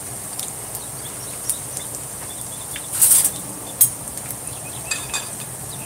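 Shrimp fritters deep-frying in hot oil in a frying pan: a steady sizzle, with a few sharp clicks of a metal spoon against the pan and a short louder burst about three seconds in.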